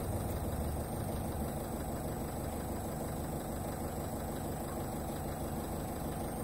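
An engine idling steadily, a low, even running hum without change.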